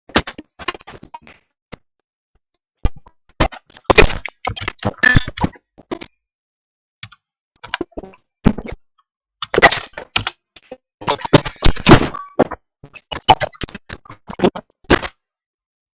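Strange sounds on a Viber voice call: irregular bursts of very sharp clicks, knocks and crackles, broken by gaps of dead silence.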